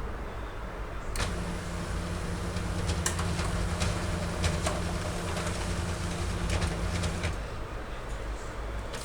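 HP LaserJet P2055DN laser printer running a test print: a steady motor drone with a low hum and a few clicks of the paper feed. It starts about a second in and stops about seven seconds in. The printout comes out wrinkled, which the technician blames on a poor-quality fuser film.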